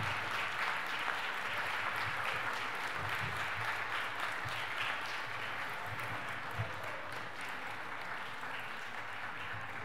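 Audience applauding: many people clapping together in a steady, dense patter that eases off slowly toward the end.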